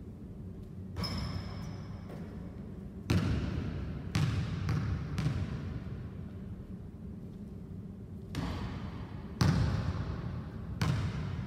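A basketball shot striking the hoop about a second in with a brief metallic ring, then the ball bouncing on a hardwood gym floor, the bounces coming quicker as they die down. A few more ball thuds on the floor later on, each echoing through the gym.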